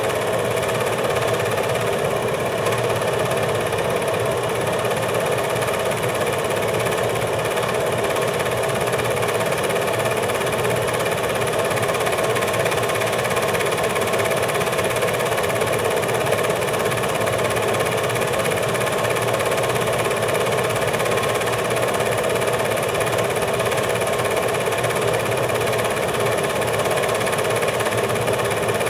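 Film projector running, a steady mechanical whir and clatter that does not change when the scenes change.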